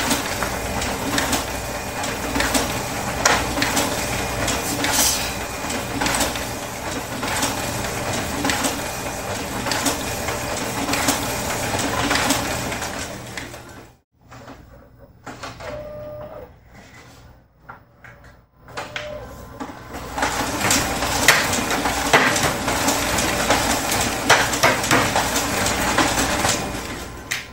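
Busy small-office ambience: a dense clatter of clicks and knocks over a steady low hum. It drops away suddenly about halfway through, leaving only faint scattered sounds for about five seconds, then the clatter resumes.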